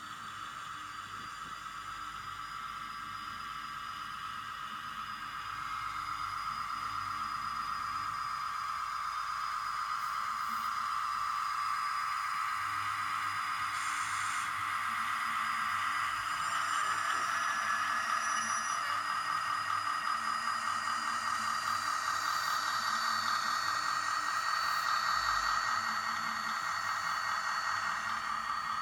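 Model diesel locomotive running on its track: a steady electric-motor whine with a fine, rapid rattle from the wheels and gears. It grows louder over the first half and then holds.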